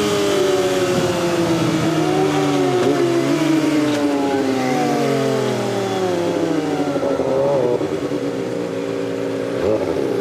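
Kawasaki ZX25R's inline-four running through a Sphere stainless full-system exhaust while riding. The engine note falls as the bike slows, with a few short rises in between, then holds steady near the end.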